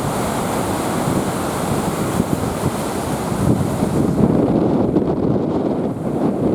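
Rough, typhoon-driven sea: surf breaking and churning in a continuous rush, with wind buffeting the microphone.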